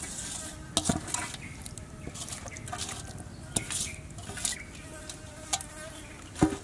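Insects buzzing, with scattered light clicks and a sharp knock near the end.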